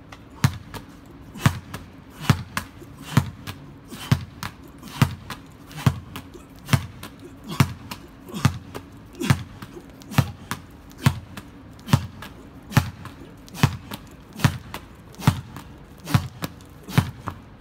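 A soccer ball being struck over and over in a steady rhythm: a hollow thump a little under once a second, about twenty in all.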